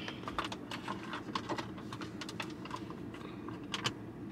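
Light, irregular clicks and taps of small plastic car accessories being handled and fitted, with a couple of sharper clicks near the end.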